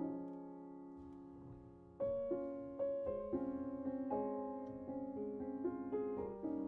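Background piano music: a soft, slow run of single notes over held chords.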